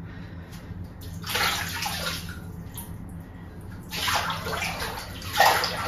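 Water splashing and sloshing in a filled bathtub in two spells, about a second in and again from about four seconds in, as a hand swishes through the bathwater to mix in apple cider vinegar and Dead Sea salt.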